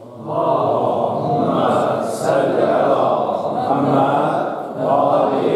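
Many voices of a congregation chanting together in unison, loud, in phrases that briefly dip about two seconds in and again near the end.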